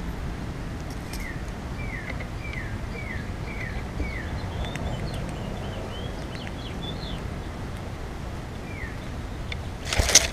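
Birds calling over a steady low outdoor rumble: one bird repeats a short falling whistle about six times in quick succession, and thinner, higher chirps follow. Near the end comes a brief, loud rustle close to the microphone.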